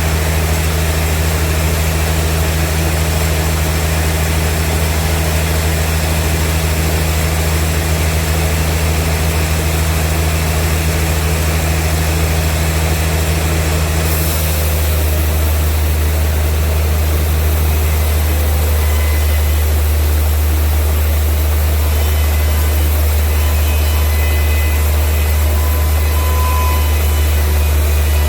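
Vintage sawmill machinery running with a steady, loud low drone and a hissing upper layer. The hiss thins out about halfway through while the drone carries on.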